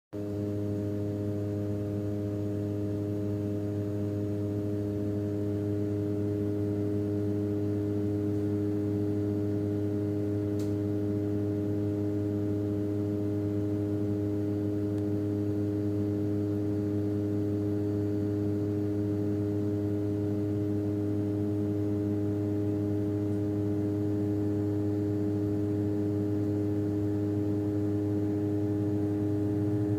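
Airplane engine drone: a steady low hum with several steady tones above it, growing slightly louder over the first several seconds and then holding even.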